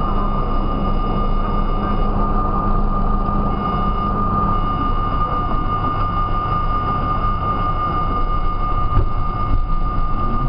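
R32 subway car standing at a station platform: a steady mechanical hum with a high whine. Near the end the train starts to pull out and the rumble grows rougher and more uneven.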